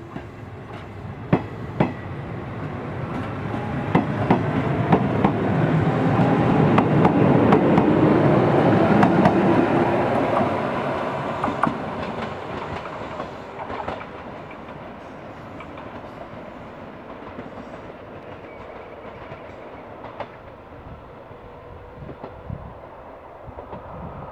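Izuhakone Railway 7000 series electric train running past, its wheels clicking over the rail joints. The rumble swells to its loudest about a third of the way in, then slowly fades as the train draws away.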